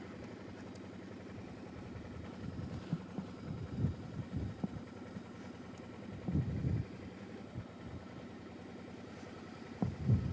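Suzuki V-Strom DL650A's V-twin engine idling steadily, with a few louder low thuds.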